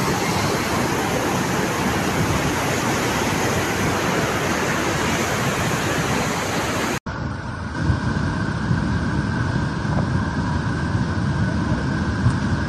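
Flash-flood water rushing in a steady, loud torrent. About seven seconds in it cuts to another recording where the rush sounds deeper and duller.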